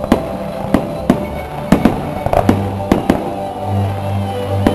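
Aerial firework shells bursting: about half a dozen sharp bangs at uneven intervals, with crackle between them. Music with held bass notes plays underneath.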